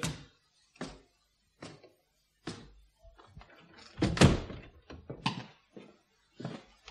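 Radio-play sound effects: a string of irregular knocks and thuds, with quiet gaps between them. The loudest comes about four seconds in.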